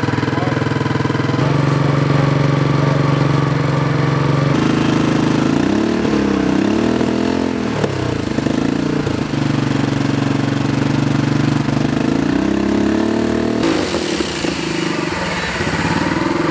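Turbocharged Predator 212 single-cylinder engine running under load on a water brake dyno, its revs rising and falling several times with sudden jumps in the engine note. It is dying as it comes onto boost, which the builders blame on the pulse-pump fuel system.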